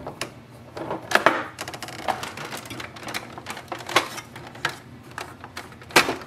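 Irregular sharp clicks and knocks of a screwdriver and hands working on a printer's plastic housing while screws are taken out, roughly one a second, the loudest about a second in and near the end.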